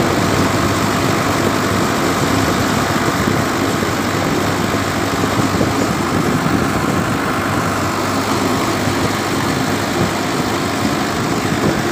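Tractor engine running steadily while the tractor drives along a road, heard close to its upright exhaust stack.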